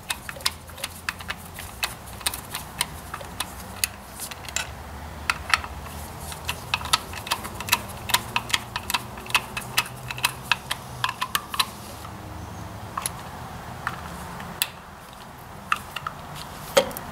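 Sharp, irregular metallic clicks from a screwdriver turning a mounting screw in the tractor distributor's breaker plate while fastening an electronic ignition module. The clicks come several a second for about the first twelve seconds, then only now and then.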